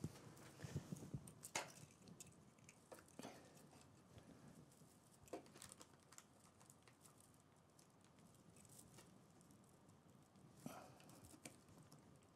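Faint rustling and scattered light ticks of fresh spruce branches being handled and pressed into place by hand.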